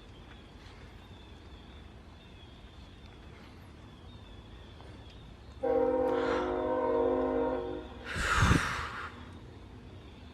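Air horn, most likely a train horn, sounding one long steady multi-note chord for about two seconds past the middle. A short, loud rushing burst of noise follows right after it, over a low steady background rush.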